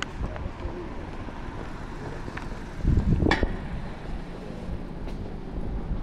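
Town street ambience with traffic noise, and one brief loud rush about halfway through.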